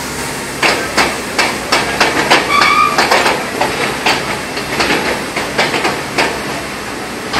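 Irregular metallic knocks and clanks, roughly one or two a second, over a steady machinery hiss, as a heat exchanger is being extracted. A brief high metallic squeal comes about two and a half seconds in.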